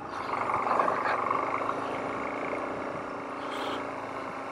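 Suzuki DR-Z400S single-cylinder engine running steadily as the dual-sport rolls slowly over loose volcanic cinder, mixed with wind and tyre noise.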